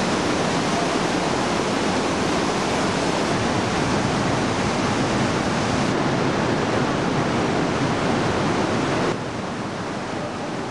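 Waterfall rushing with a dense, steady roar, which drops a little in level about nine seconds in.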